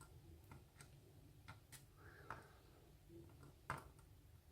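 Faint, irregular light clicks of tweezers picking up and setting down small lock pins, with one sharper click a little before the end.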